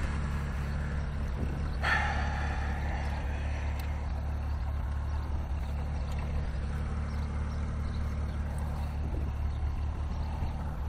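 Tractor engine idling steadily, with a short metallic clank about two seconds in.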